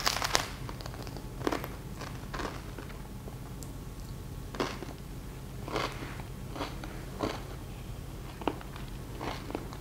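A person biting into a herring-and-butter appetizer, with one sharp bite at the start, then chewing with short, irregular mouth noises every second or so.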